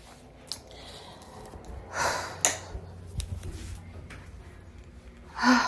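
A person breathing out audibly twice, one breath about two seconds in and a deeper one near the end, with a few faint clicks between.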